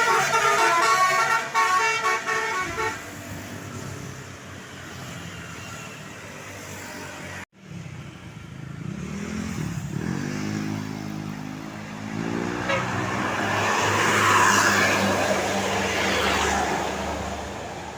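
Tour bus 'telolet' multi-tone horn playing a quick melody for the first few seconds, then stopping, leaving the bus engine running. After a brief drop-out, a bus engine rises in pitch as it pulls away, and its road noise swells to a peak about two-thirds of the way through.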